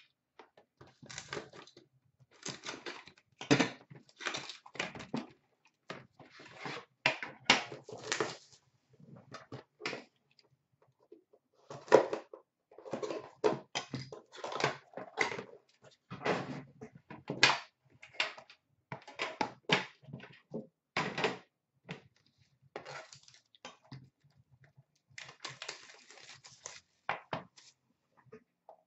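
Irregular crinkling, scraping and knocking as a sealed box of hockey trading cards is unwrapped and opened by hand, with the packaging handled in short bursts.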